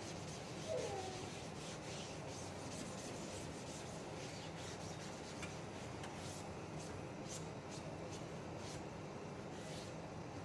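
Cloth rag rubbing cooking oil over the hot steel surface of a flat top griddle in repeated wiping strokes, laying down a thin seasoning coat. There is a short falling squeak just under a second in.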